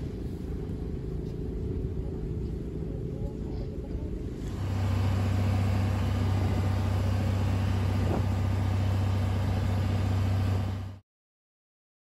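Wind and light surf on a beach. About four and a half seconds in, this gives way to the steady, even drone of an outrigger bangka's engine under way at sea. The sound cuts off abruptly near the end.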